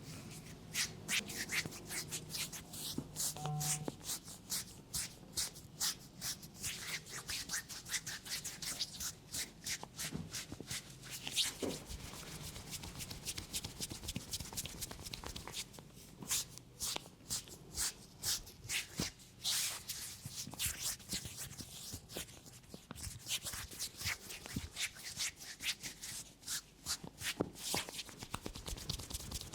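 Hands massaging a head: rubbing over hair and skin, broken by quick, sharp hand strikes about two or three times a second.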